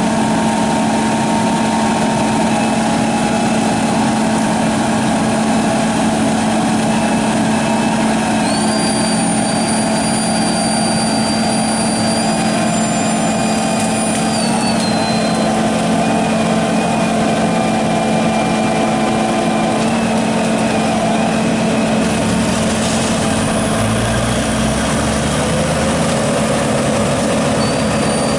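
Engine running steadily at a constant speed, with a thin high whine from about 8 to 15 seconds in.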